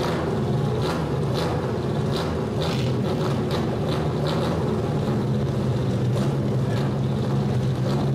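Old Japanese kaido-racer car's engine idling steadily through a straight-pipe exhaust as the car creeps forward, a continuous low, even rumble.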